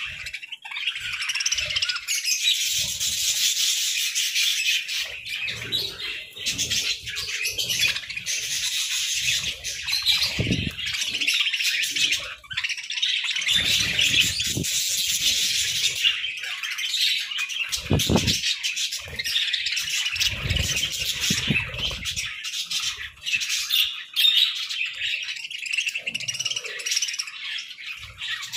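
A flock of budgerigars chattering and chirping nonstop, a dense high warbling of many birds at once, with occasional low thumps.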